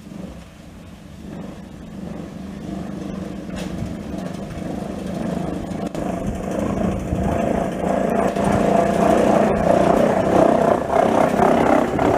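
Class 405.95 electric rack railcar running on the cog rail, its running gear giving a steady hum and a rumble that grow steadily louder as it draws near and passes close by.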